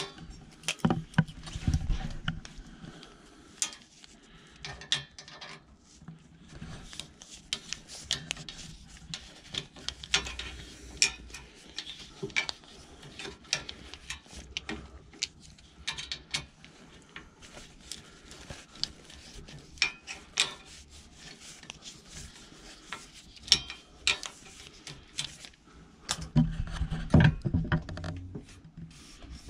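Scattered small metal clicks and scrapes of a hex key working the bolts of a steel bicycle pannier rack, with washers and rack struts knocking against each other. Louder dull handling bumps come about a second in and again near the end.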